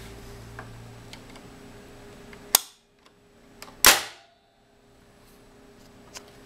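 Two sharp clacks from the open A3144 circuit breaker's trip mechanism as it is worked with a thin rod, a little over a second apart; the second trails off briefly. A faint low hum stops at the first clack.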